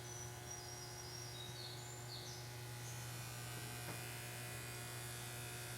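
Faint, steady low electric hum of a toaster heating, with a few faint high bird chirps in the first few seconds.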